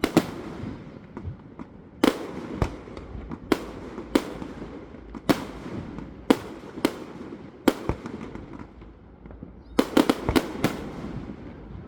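Fireworks display: shells bursting with sharp bangs about once a second, irregularly spaced, with crackling between them. A quick flurry of several bangs comes about ten seconds in.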